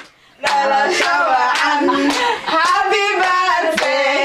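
A group singing together with rhythmic hand clapping, starting about half a second in after a brief pause.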